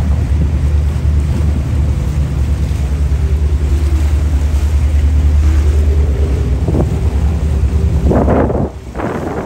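Heavy low wind rumble on the microphone over the steady drone of a boat's engine and wash of water, filmed from a moving boat. Near the end the rumble drops away, followed by two short noisy bursts.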